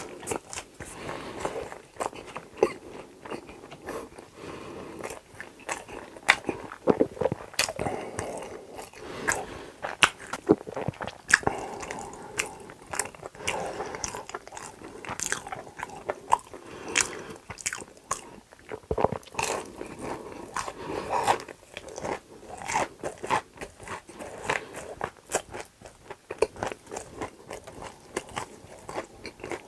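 Close-miked chewing and biting of crunchy food: a steady stream of irregular sharp crunches and mouth sounds.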